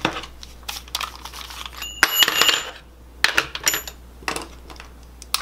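Small metal tools and hardware being handled and set down on a hard countertop: scattered clicks and clinks, with a ringing metallic clink about two seconds in and a shorter one near four seconds.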